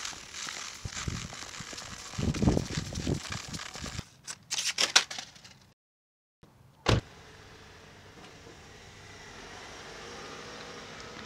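Crackling and rustling with a cluster of sharp clicks, then a car door shutting with one loud knock just past halfway. After it comes the steady low hum of a car engine idling.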